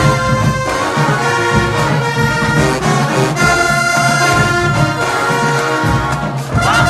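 Show-style HBCU marching band playing: brass horns sounding held notes over a steady drum beat.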